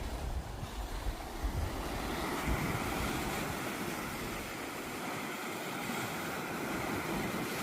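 Rough sea surging against a rocky shore, a steady wash of surf, with wind buffeting the microphone in a low rumble that eases about halfway through.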